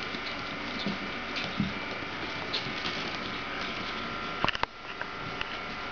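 Pomeranian puppies scuffling on a linoleum floor: faint light knocks and pattering over a steady background hiss, with a quick cluster of sharp clicks about four and a half seconds in.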